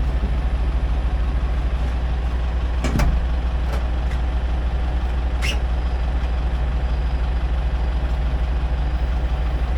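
Tractor engine idling steadily with an even low pulse, with a single knock about three seconds in and a short, sharp metallic sound a little past halfway.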